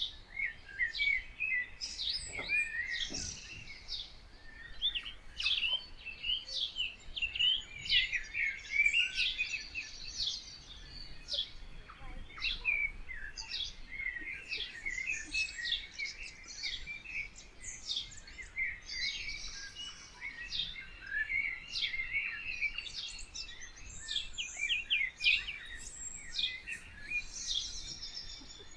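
Songbirds chirping and singing all at once, a dense chorus of short chirps and trilled phrases overlapping without a break.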